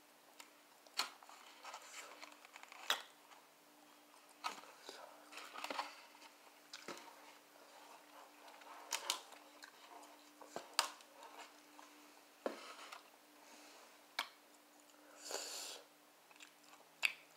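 Close-up eating sounds of fried barbecue ribs: chewing with scattered sharp clicks, and a short crunch about fifteen seconds in.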